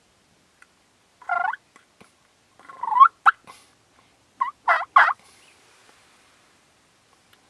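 Turkey calls in short separate bursts, ending with a run of three quick notes about five seconds in.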